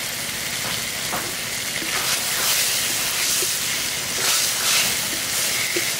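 Thick taro-greens mash sizzling in a hot metal wok while a wooden spatula stirs it, the hiss swelling with each push of the spatula.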